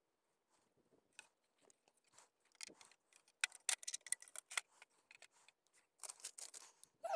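Quick, scattered clicks and rustles of hands handling the metal and plastic parts of a RAM laptop mount and its paper instruction sheets.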